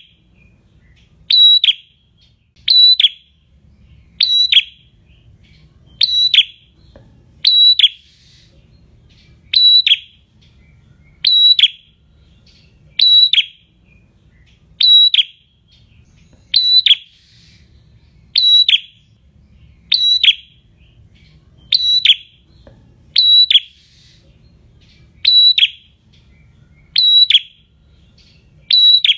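Caged prenjak singing: a short, shrill, high call repeated at a very steady pace, about once every second and a half to two seconds.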